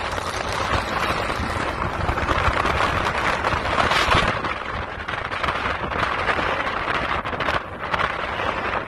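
Wind rushing over the microphone from a moving car, with road and traffic noise beneath, the rush surging and easing in gusts.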